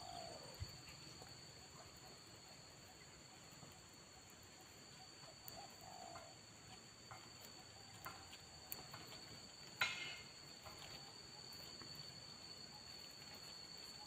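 Faint, steady high-pitched drone of insects, with a few soft clicks and rustles, the loudest about ten seconds in.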